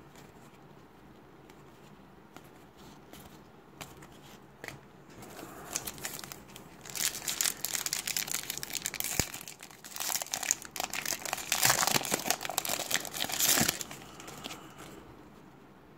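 Foil wrapper of a Topps trading-card pack crinkling and tearing as it is opened by hand. The crinkling starts about five seconds in and lasts about nine seconds. Before it there are a few light clicks of cards being handled.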